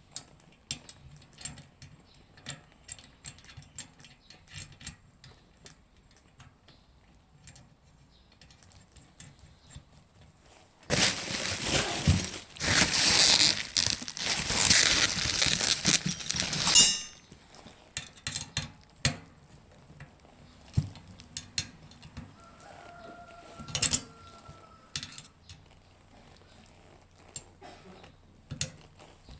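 Small metal parts clicking and clinking as a bicycle springer fork is assembled by hand. About eleven seconds in, a loud rushing noise of unclear source runs for about six seconds and then stops abruptly, followed by more scattered clicks and a sharper knock.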